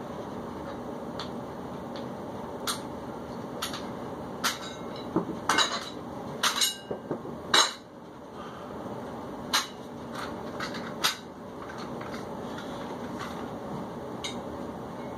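Metal plate-loaded dumbbells clinking and clanking together as they are picked up, a run of sharp clanks through the middle, the loudest about seven and a half seconds in.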